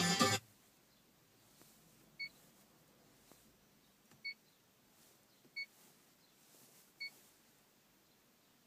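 Winca C053 touchscreen car head unit giving four short key-press beeps, one for each tap on its menu icons, spaced about one to two seconds apart.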